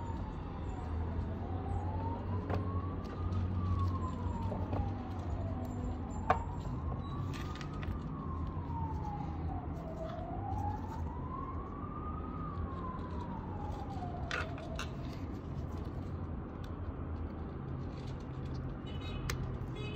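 An emergency vehicle siren wailing, its pitch slowly rising and falling about every four to five seconds, fading out about three-quarters of the way through, over a steady low rumble. A few light clicks, the sharpest about six seconds in.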